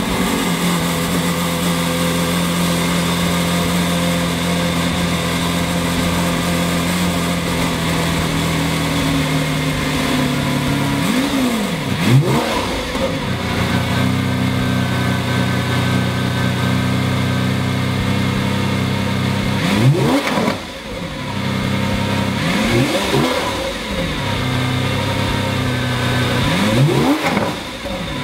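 Lamborghini Aventador's V12 engine idling steadily just after being started, blipped four times, each a quick rise and fall in pitch: about twelve seconds in, then around twenty, twenty-three and twenty-seven seconds.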